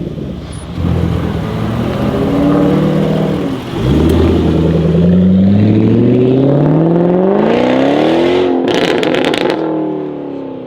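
Jaguar F-Type R's supercharged V8 through a straight-piped Larini exhaust, accelerating hard: the engine note climbs through the revs, drops briefly at a gear change a few seconds in, and climbs again. Near the end comes a burst of rapid exhaust crackles and pops, then the note falls and fades as the car pulls away.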